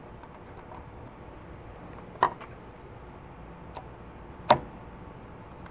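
Small sharp clicks and taps of wire connectors and a screwdriver being handled against the plastic handle housing of a Ryobi miter saw during rewiring: two distinct clicks a little over two seconds apart, with a fainter tick between them, over faint steady background noise.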